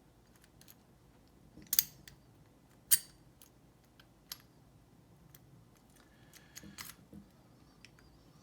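Sharp metallic clicks and light clinks of small parts being handled while a brass padlock is taken apart: two loud clicks about two and three seconds in, scattered faint ticks, and a cluster of light clinks with a brief ring near the end.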